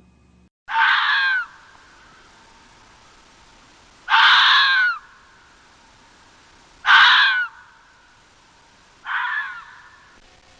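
An animal's harsh, screeching call, given four times, each call under a second long and two to three seconds apart, the last one weaker.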